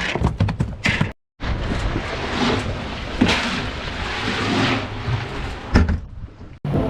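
Knocks and handling thumps on a boat deck for about the first second, then a steady rush of wind and water on the microphone with one sharp thud near the end. Just before the end a boat's engine starts running steadily.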